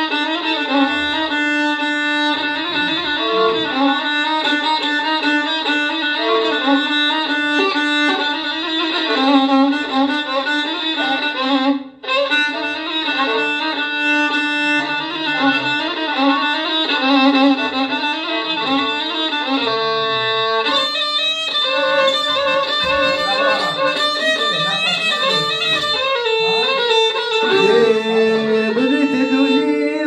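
Violin played through a small amplifier, bowing a continuous melody with a momentary gap about twelve seconds in.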